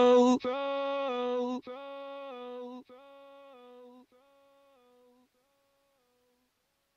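The soundtrack's final sustained musical note, repeating about every 1.2 seconds and quieter each time, fading out about four seconds in.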